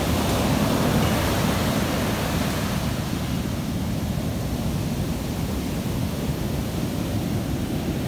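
Ocean surf breaking and washing up a sandy beach: a steady rush of white water, a little brighter in the first few seconds.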